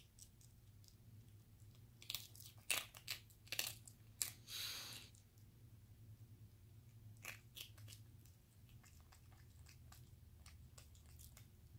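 Capuchin monkey crunching and chewing hard monkey biscuits: a run of sharp crunches about two to five seconds in, then softer, scattered chewing.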